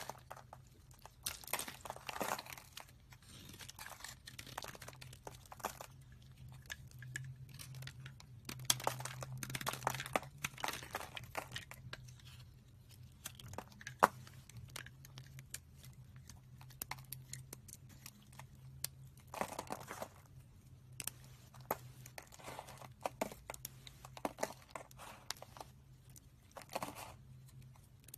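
Dry, pre-cut soap cubes crumbling and crackling as fingers press and break them off the bar, in irregular crunchy bursts with one sharp click about halfway through. A faint steady low hum runs underneath.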